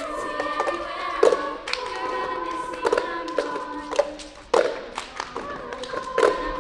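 Youth treble choir singing long held notes, with the cup-game accompaniment: hand claps and plastic cups struck and tapped on the stage floor.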